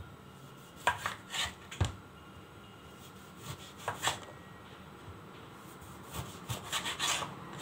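Kitchen knife cutting through the thick peel of a citron on a wooden cutting board: the blade rubs through the rind, with a few scattered knocks of the knife on the board and a quicker run of small knocks near the end.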